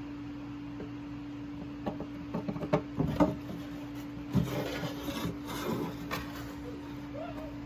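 Clicks, taps and rubbing of hard objects being handled, for about four seconds in the middle, over a steady low hum.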